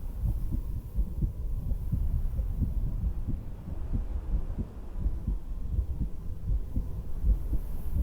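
A person's heartbeat heard through a stethoscope: repeated low thumps over a steady low rumble.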